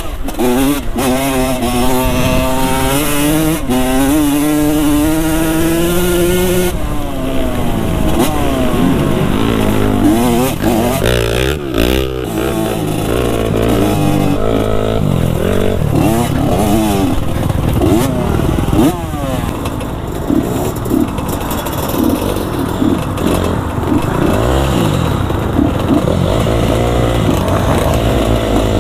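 Dirt bike engine running under way, its pitch climbing steadily for the first several seconds, then revving up and down repeatedly.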